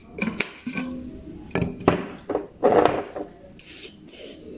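Glass spice jars and their metal lids clinking and knocking as they are handled over a stainless steel pot, in a handful of sharp separate knocks, with a longer rattle near the middle and a soft hiss near the end as spice is shaken out.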